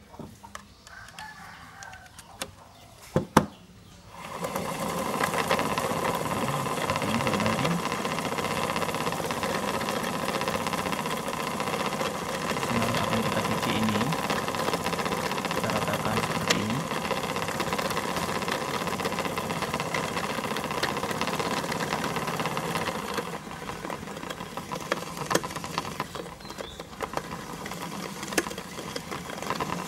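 Small power-bank-driven motor spinning a plastic water bottle, winding braided PE fishing line off a spinning reel onto it: a steady whir that starts about four seconds in and drops to a lower level for the last several seconds. A sharp knock just before the motor starts.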